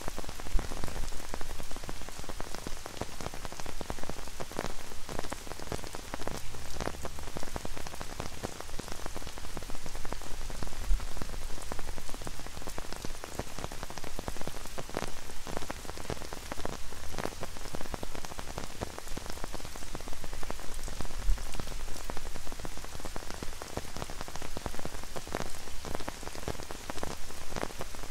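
Light rain falling on an umbrella held overhead: many separate drops tapping on the canopy over a steady hiss of rain on wet paving.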